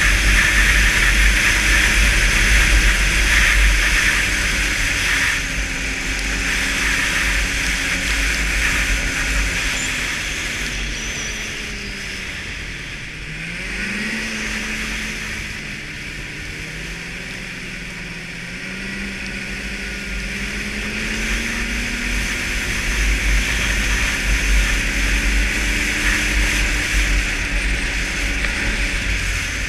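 Snowmobile engine running at speed along a trail. Its pitch sinks about 13 seconds in as the throttle eases, then climbs again and holds.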